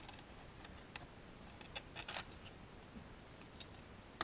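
Faint scattered small clicks and taps from a soldering iron working at a meter's wire terminal while the wires are handled, with a short cluster of crackly ticks about two seconds in.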